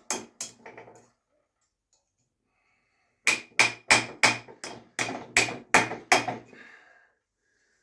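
Hammer blows on a bent metal part of a die grinder, laid on a piece of metal to straighten it: a few taps, a pause of about two seconds, then about ten blows at roughly three a second, each with a short metallic ring.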